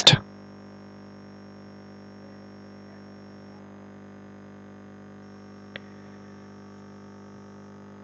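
Steady low electrical hum, with a single faint click about six seconds in.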